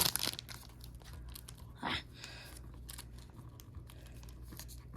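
Foil wrapper of a baseball card pack crinkling and tearing as it is pulled open, densest at the start, then lighter rustling crackles of wrapper and cards being handled.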